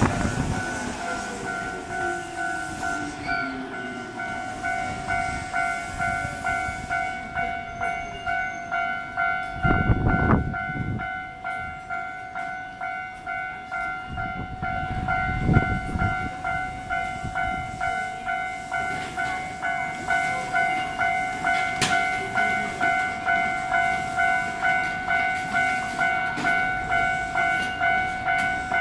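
Electronic warning bell of a Japanese railway level crossing ringing steadily, at about one and a half strikes a second. An electric train's motor whine falls in pitch at the start as it slows, and two short, low rushing noises come about ten and fifteen seconds in.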